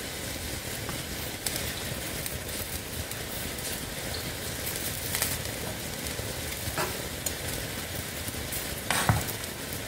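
Chicken and dumplings boiling in a pan, the broth bubbling steadily, while a metal slotted spoon stirs under the dumplings and scrapes or knocks the pan a few times.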